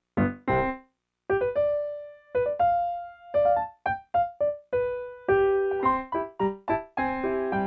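Solo piano playing a halting line of single notes and short chords, separated by brief pauses.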